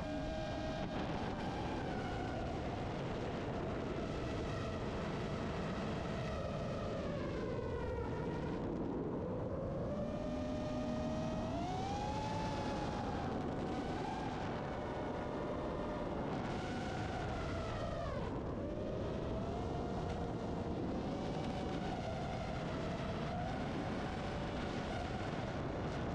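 FPV racing quadcopter's brushless motors and propellers whining over a rush of wind. The pitch rises and falls with the throttle, dipping low twice.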